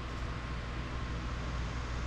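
Steady low hum and hiss of background room noise, with no distinct knocks or clicks.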